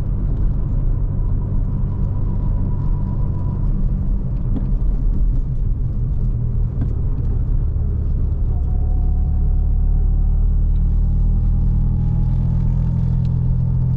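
Car driving at a steady speed, heard from inside the cabin: a steady low rumble of engine and road noise, with a faint thin whine in the first few seconds and again, slowly rising, in the second half.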